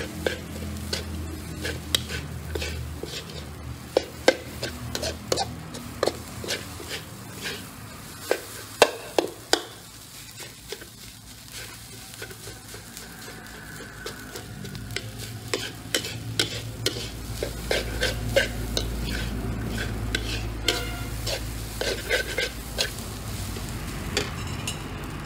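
Fried rice being stir-fried in a stainless steel wok: a metal spatula repeatedly scrapes and clinks against the pan in irregular strokes over a steady sizzle.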